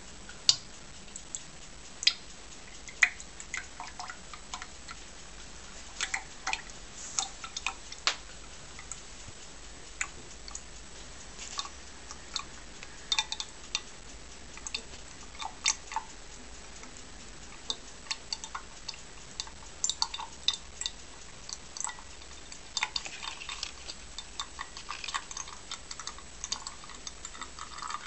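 Liquid streaming from the orifice of an Elcometer viscosity flow cup into a glass beaker, making irregular small drips and splashing clicks over a steady hiss.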